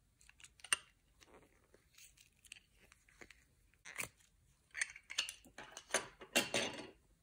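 Hands working soft modelling clay out of a flexible plastic flower mould: scattered clicks and sticky crackles of plastic and clay, growing denser and louder over the last couple of seconds.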